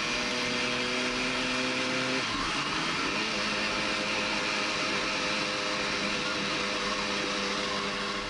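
Motorcycle engine running at a steady cruise under heavy wind rush on a helmet-mounted microphone; the engine note shifts about two seconds in, as with a gear change or easing of the throttle.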